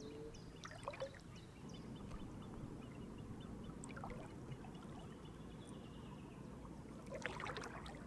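Faint outdoor ambience with a low, steady trickling wash. Over it come a few small clicks and taps from a wood-scaled Swiss Army knife being handled, with a cluster of clicks near the end.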